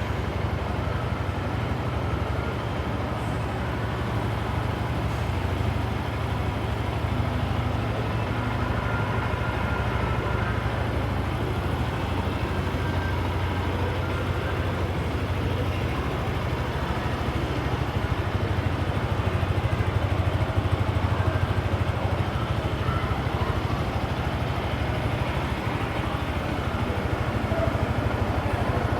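Yamaha Y15ZR motorcycle's single-cylinder engine idling steadily.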